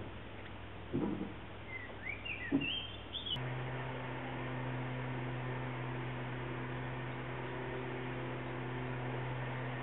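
A couple of soft knocks and a quick run of short rising bird chirps, then a steady electrical hum, like mains hum, sets in suddenly about three and a half seconds in.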